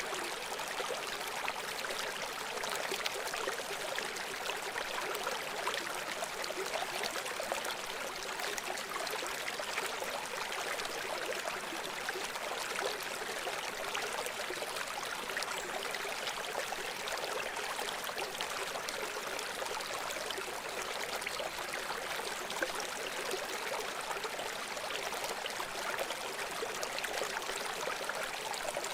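River water flowing steadily over rocks: a continuous rushing and babbling.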